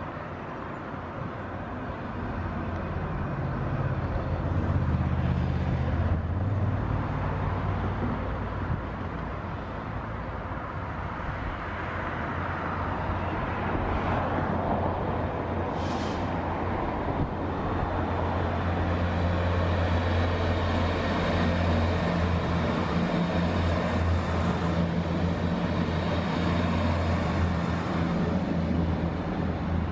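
Red railway locomotives running light, approaching and passing on the line with a steady low hum of their motors. The hum grows louder over the first few seconds and then holds steady.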